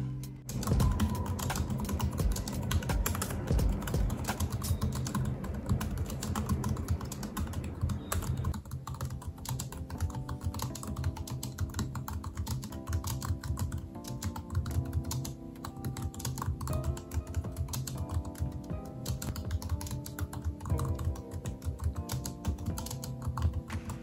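Continuous typing on an Omoton backlit low-profile keyboard: a quick, steady patter of key clicks. Soft background music plays underneath, its notes clearer from about nine seconds in.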